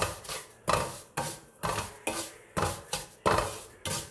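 Wooden spoon scraping and stirring roasted semolina around a metal pan, in quick strokes about two a second.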